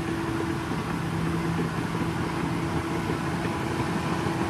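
A small motor running steadily: an even hum with a hiss over it.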